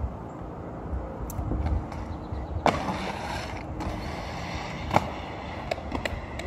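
Skate wheels and skate frames hitting and scraping on concrete and asphalt. A loud impact comes about two and a half seconds in, followed by about a second of scraping. A second sharp hit comes near five seconds, as a skater goes down on the pavement, and a few lighter clicks follow.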